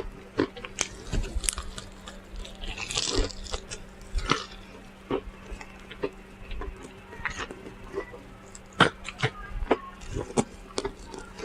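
Close-miked chewing and mouth smacking on fried chicken: irregular wet clicks and smacks, with a louder crunchy bite about three seconds in.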